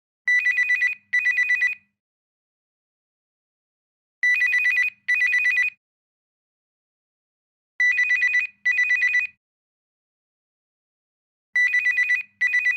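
Cellphone ringtone: an electronic two-tone trill ringing in double bursts, two short warbling rings then a pause of about two seconds, repeating four times.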